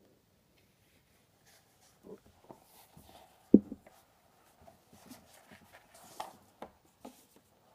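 Paper sheets and book pages handled and shuffled, rustling softly from about two seconds in, with one sharp knock of paper or book being tapped down about three and a half seconds in.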